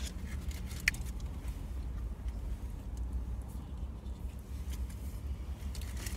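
Steady low hum of a parked car's engine idling, heard inside the cabin, with faint rustles and light clicks from takeaway food packaging being handled. One sharper click comes about a second in.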